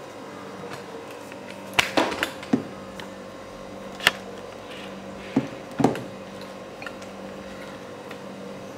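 Hands turning marinated chicken pieces in dry flour in a stainless steel bowl to coat them: soft rubbing, with several sharp knocks against the metal bowl in a cluster about two seconds in and again near four and six seconds.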